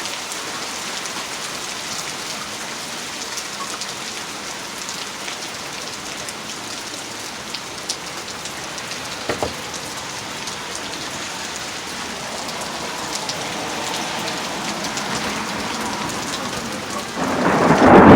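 Steady rain falling, with scattered drop ticks. A low rumble of thunder builds over the last few seconds and breaks into a loud, close thunderclap about a second before the end.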